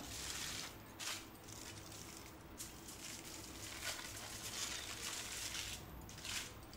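Aluminium foil crinkling and rustling as hands fold it around a slab of soft dough. A quiet, steady crackle with a few louder crinkles.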